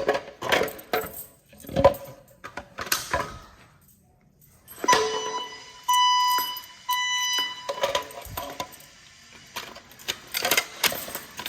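Fire alarm sounding three short, steady high-pitched tones about half a second apart, the temporal-three evacuation pattern. Scattered clicks and clatter of handling come before and after.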